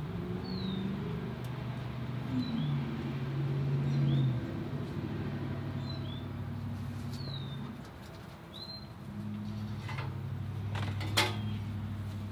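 Outdoor ambience with a small bird chirping repeatedly, short high descending chirps about once a second, over a low steady hum that shifts in pitch now and then. A few sharp knocks come near the end.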